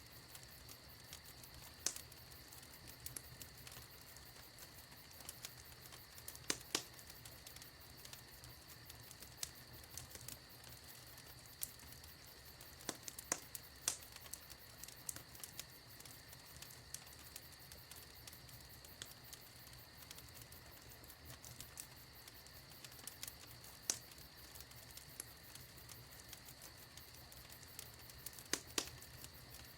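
Wood fire in a fireplace crackling: many small pops and ticks over a faint steady hiss, with a few sharper snaps now and then.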